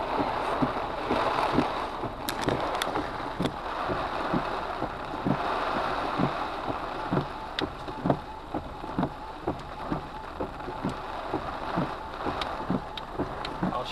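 Wind-driven heavy rain on a stopped car, heard from inside: a rushing hiss that swells and eases in gusts, with large drops striking the windshield and roof as irregular sharp taps, several a second.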